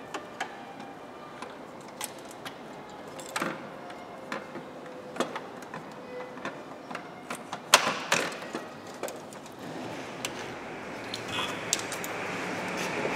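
Scattered clicks and knocks of hand tools and metal and plastic engine parts being handled and fitted during reassembly in an engine bay, with one sharper click about eight seconds in. A steady whirring noise swells over the last few seconds.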